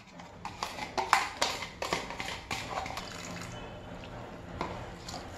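A hand squishing and mixing wet, sticky bun dough of flour, yeast-milk and egg in a plastic tub: irregular wet squelches and clicks, loudest in the first three seconds, then quieter.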